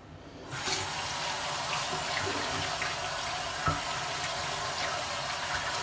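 Bathroom sink tap turned on about half a second in and running steadily into the basin, with one short knock partway through.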